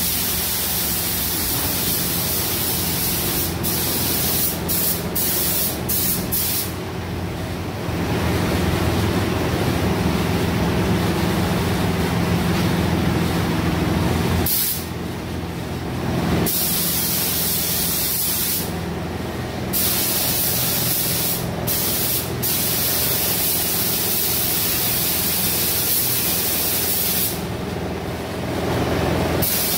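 Compressed-air paint spray gun hissing as coats of red colour are sprayed onto a car body. The hiss stops briefly several times, longest about midway and near the end. A steady low hum runs underneath.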